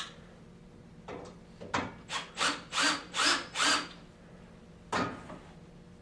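Power drill driving bolts into an aluminum chaise lounge frame in about five short trigger pulses, each a brief whine that swells and dies. A sharp click comes at the start and a knock about five seconds in.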